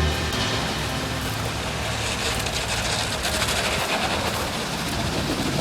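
Street traffic: a steady rush of road vehicle noise, growing hissier a couple of seconds in as a vehicle passes.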